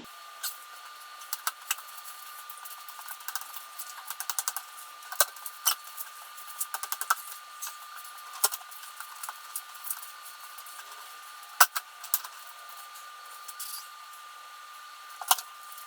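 Scattered clicks and knocks of a motorcycle seat being handled and tried in place against the frame and sissy bar, with the sharpest knock about two thirds of the way through, over a steady high-pitched hum.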